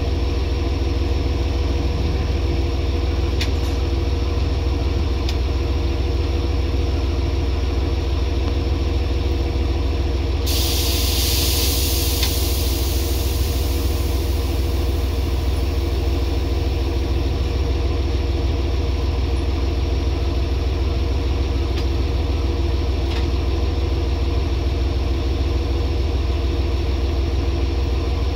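JR Hokkaido H100 diesel-electric railcars idling with a steady low engine hum. About ten seconds in, a sudden hiss of compressed air being vented starts and fades away over several seconds.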